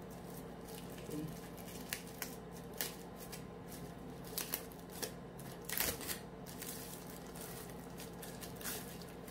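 Thin clear plastic bag crinkling in irregular crackles as a router unit is pulled out of it, with one louder crackle about six seconds in.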